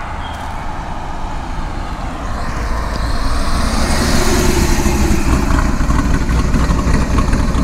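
C5 Corvette with a supercharged LSA V8 accelerating hard at wide open throttle. It grows louder as it approaches, is loudest as it passes about four seconds in, and stays loud as it pulls away.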